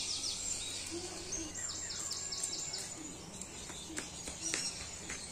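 Songbirds chirping in two quick runs of high, falling notes over steady outdoor background noise, with a few short clicks near the end.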